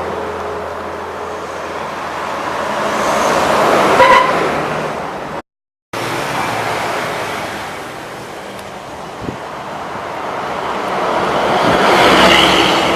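Large vehicles, buses, passing at speed on a highway: the rush of engine and tyres swells and fades twice, with a short horn note at the first pass about four seconds in. The sound cuts out completely for about half a second just after five seconds.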